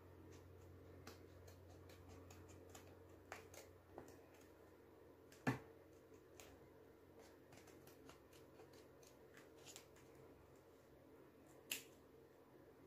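Faint paper-craft handling: a sheet of paper rustled and snipped with scissors, giving scattered small ticks and one sharper snap about five and a half seconds in and another near the end, over a low steady room hum.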